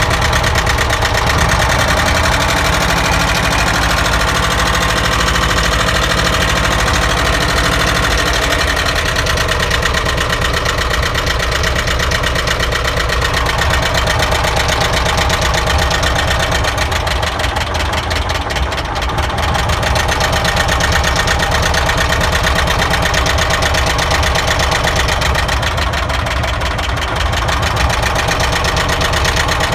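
ZAZ car engine idling steadily with a knock, the fault being traced by pulling spark-plug caps.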